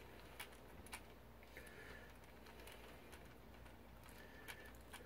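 Near silence with a few faint, light clicks as a small Husky precision screwdriver is spun to run nuts down onto small bolts.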